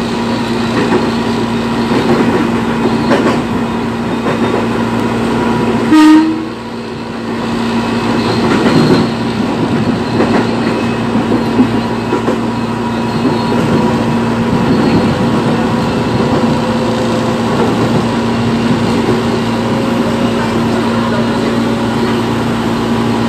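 Electric train running along the track, heard from inside the driver's cab: a steady hum and rumble with wheel clatter on the rails. About six seconds in, a short, loud horn blast is the loudest sound.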